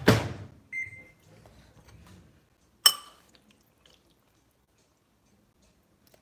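A loud knock at the start, a short high electronic beep just under a second in, and a metal spoon clinking sharply against a ceramic bowl about three seconds in, ringing briefly.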